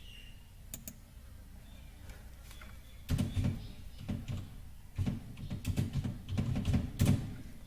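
A couple of mouse clicks about a second in, then typing on a computer keyboard in quick runs of keystrokes from about three seconds in until near the end.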